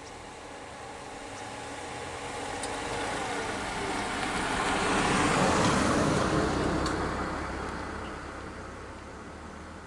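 A motor vehicle driving past: the noise swells, peaks about halfway through and fades away again.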